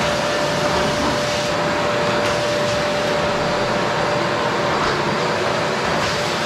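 Qilive vacuum cleaner running steadily: an even rush of air with a constant whine over it.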